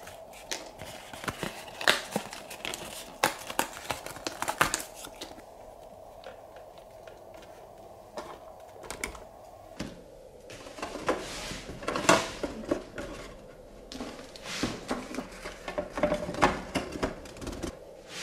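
Plastic toy packaging crinkling and tearing, with small hard plastic toy pieces clicking and tapping as they are handled, in irregular clusters that ease off for a few seconds midway.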